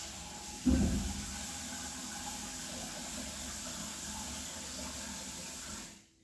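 Steady hiss of falling rain, with one dull thump about a second in. The rain sound cuts off abruptly near the end.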